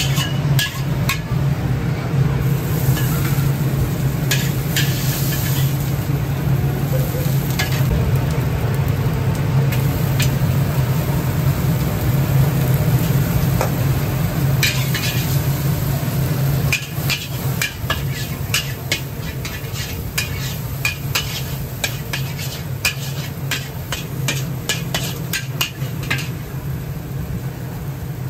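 Fried Hokkien noodles frying in a large carbon-steel wok over a steady low roar. Through the second half a metal wok ladle clanks and scrapes against the wok in many quick strokes.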